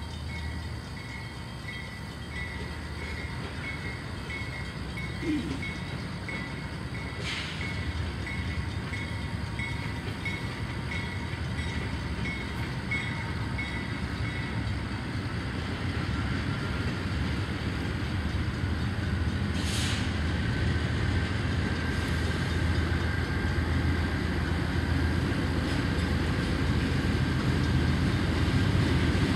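Canadian National diesel freight locomotives approaching, their low engine rumble growing steadily louder. A grade-crossing bell dings in a steady rhythm through the first half, then stops.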